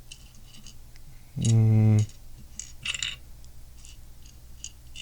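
Small plastic Lego pieces clicking and rattling as they are handled and sorted. About a second and a half in, the builder gives one short, level hum like "mmm".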